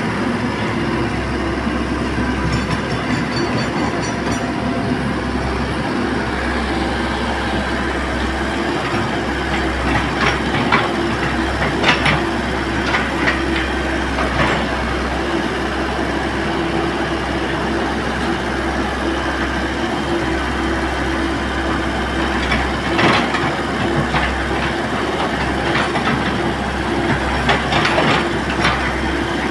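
Komatsu hydraulic excavator at work: its diesel engine runs with a steady drone, and short metallic clanks and knocks come in clusters about a third of the way in, again past the middle, and near the end.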